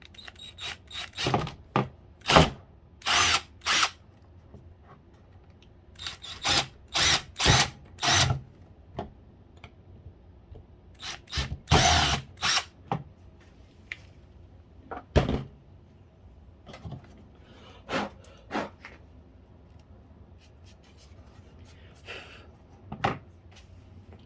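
Power drill run in many short bursts, the trigger pulled briefly again and again, with one longer run about halfway through, drilling holes in the plastic casing of a PlayStation 3.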